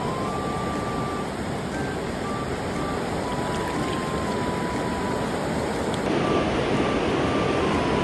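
Steady rush of flowing stream water. About six seconds in it changes to a slightly louder rush, with water spilling over a weir in the picture. A faint thin high tone steps on and off throughout.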